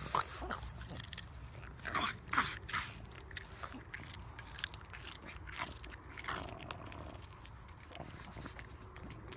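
A pug biting and crunching on a raw carrot: irregular crunches and chomps, the loudest about two seconds in.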